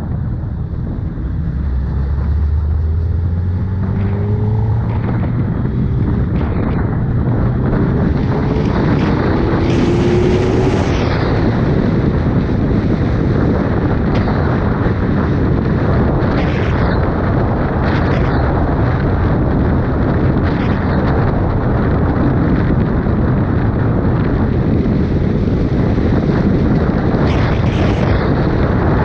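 Suzuki Hayabusa inline-four motorcycle engine pulling hard, its pitch rising over the first several seconds, then heavy wind noise on the microphone at speed that covers most of the engine.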